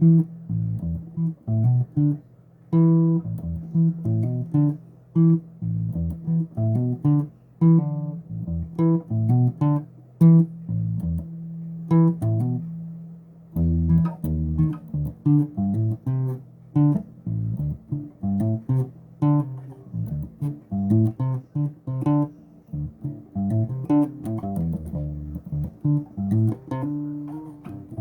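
Bass guitar being played: a steady run of plucked low notes in short phrases with brief pauses between them.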